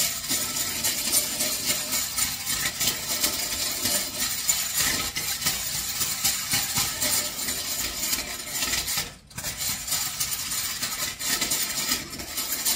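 Hand-cranked rotary egg beater running fast, its gears whirring and its metal beaters clattering against a ceramic mixing bowl as it beats egg and buttermilk. The cranking stops briefly about nine seconds in, then starts again.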